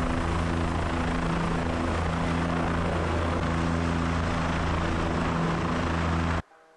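Helicopter in flight heard from inside the cabin: a steady drone of rotor and turbine with a low hum of steady tones. It cuts off suddenly near the end.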